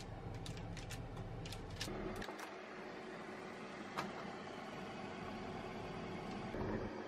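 A fork's metal tines press and tap along the pastry edges on a paper-lined baking tray, making a quick run of light clicks. Then comes the steady hum of a combination microwave oven's cooling fan, with a single sharp click about four seconds in.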